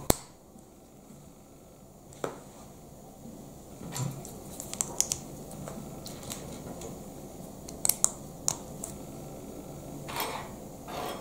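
Lego plastic plates and bricks being handled and snapped together: scattered sharp clicks, a few coming in quick little runs.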